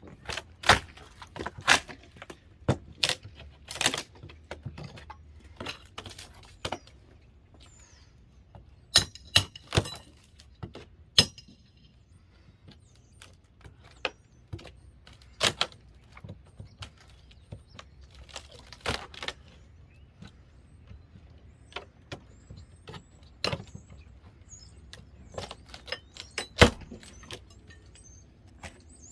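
Irregular hammer strikes and knocks on wooden wall framing, with a brief metallic clink around ten seconds in.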